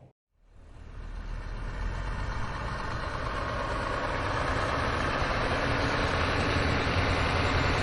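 Heavy machinery engine running steadily, fading in just after a brief silence at the very start.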